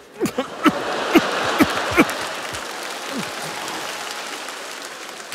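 Studio audience applauding: the clapping swells quickly, with a few short cries in the first two seconds, then slowly dies away.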